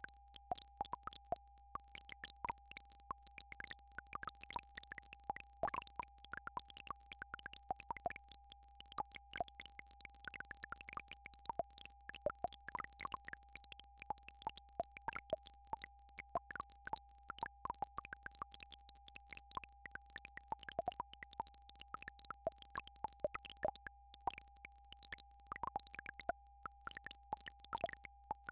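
Synthesized healing-frequency track: one steady, unbroken mid-pitched electronic tone with a low steady drone beneath it, and many short irregular pings scattered over it, several a second.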